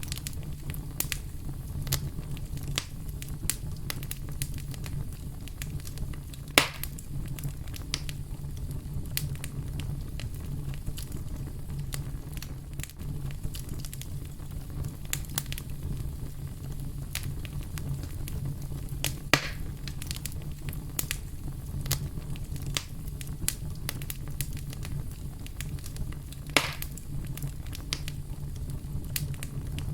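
Wood fire crackling in a fireplace: frequent small crackles and snaps over a steady low rumble, with three louder pops spread through.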